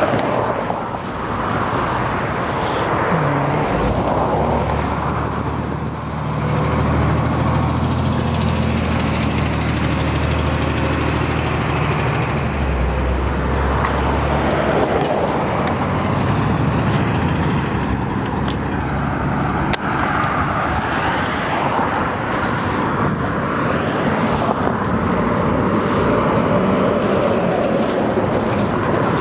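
Road traffic passing on a multi-lane street: cars and trucks going by in a steady noise, with a deep engine drone from a heavy vehicle for about ten seconds, starting a few seconds in.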